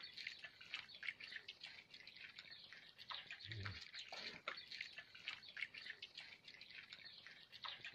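Puppies lapping and chewing wet food from a metal pan: many quick, irregular wet clicks, with one soft low thump about three and a half seconds in.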